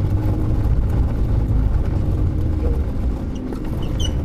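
Shopping cart wheels rolling over a hard store floor, a steady low rumbling rattle. A few short high chirps come near the end.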